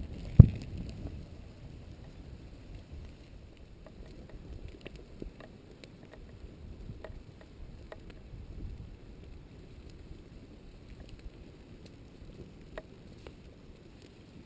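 Sharp pop about half a second in, then faint scattered crackles and ticks from an advancing pahoehoe lava toe and the plants it is scorching, over a low wind rumble on the microphone.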